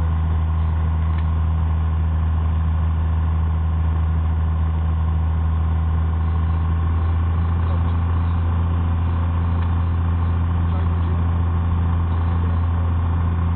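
Piper PA-32's six-cylinder Lycoming piston engine running steadily, a loud, even low drone heard inside the cabin as the aircraft rolls out on the runway after touchdown.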